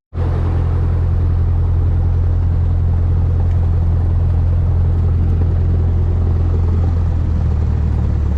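Cessna 172's four-cylinder piston engine running at a steady speed, heard as a loud, even low drone inside the cabin.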